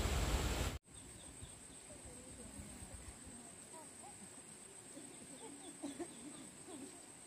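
A loud rushing noise cuts off suddenly under a second in, leaving a quiet rural background: a steady high-pitched insect drone with faint, scattered animal calls.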